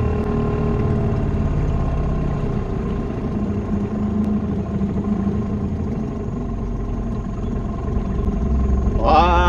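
Small boat's outboard motor running steadily, with a low rumble and engine drone.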